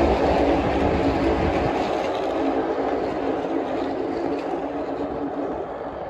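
A pack of NASCAR stock cars running by together, their V8 engines making a steady, layered drone. The sound fades as the pack pulls away down the track, and the deep rumble drops off about two seconds in.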